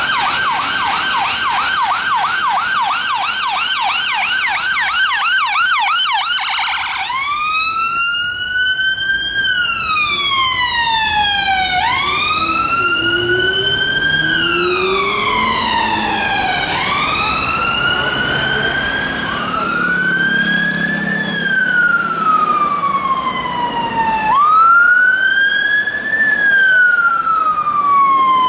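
Ambulance sirens on blue-light response: a fast warbling yelp for about the first seven seconds, then a slow wail rising and falling every two to three seconds for the rest.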